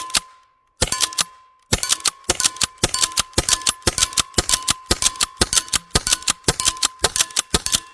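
Modified Byrna HDX CO2 less-lethal launcher fired in rapid semi-auto, its pepper rounds smacking a steel target. Two quick shots, a pause of about a second, then a long fast string at about three shots a second, with a faint steady high tone underneath.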